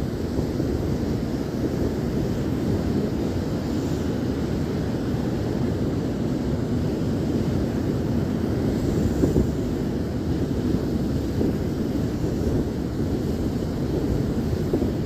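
Steady ocean surf mixed with wind buffeting the microphone, a constant low rushing with no breaks.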